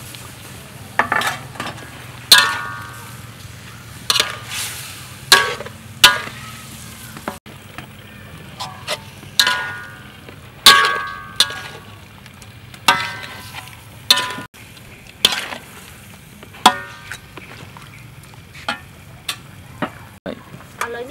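Metal spatula stirring and scraping stingray pieces around a wok, striking the pan about once or twice a second with short ringing clangs, over a steady sizzle of frying.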